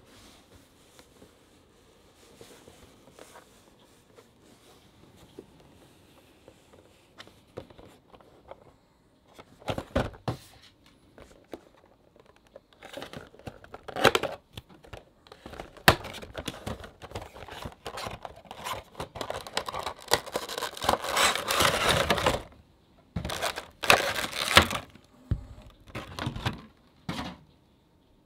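Unboxing a Funko Pop cardboard window box by hand: faint handling at first, then from about ten seconds in, a blade cutting at the box top and the packaging rustling, tearing and crinkling in irregular bursts as the vinyl figure is worked out, loudest in a long stretch of crinkling a few seconds before the end.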